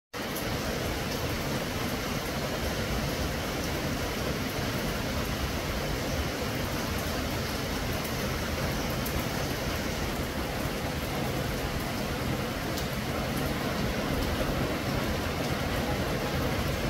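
Steady rain falling on tree leaves, an even hiss that does not let up.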